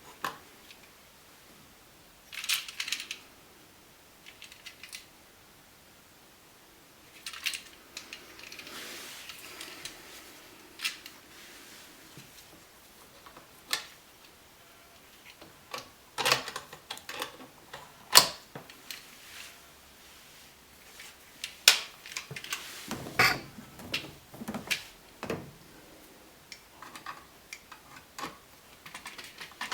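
Irregular small clicks, taps and light metallic clinks, with a few brief scrapes, as hand tools and electrical parts are handled while an outlet is being wired.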